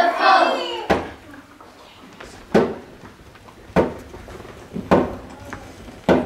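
Children's group chant ending just under a second in, then five single heavy thuds at a slow, steady pace, about one a second.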